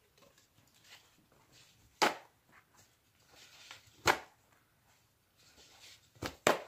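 Four sharp knocks or taps over a quiet room: single ones about two seconds apart, then two close together near the end.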